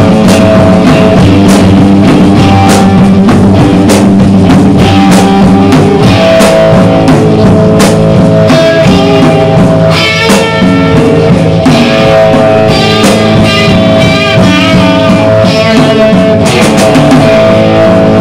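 Rock band playing loud: guitar over a drum kit, with regular drum and cymbal hits.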